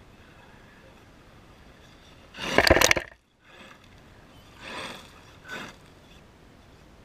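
Traxxas E-Revo RC truck's tyres skidding and spraying gravel close by: one loud burst of crunching, scattering gravel about two and a half seconds in, then two shorter, fainter bursts a couple of seconds later.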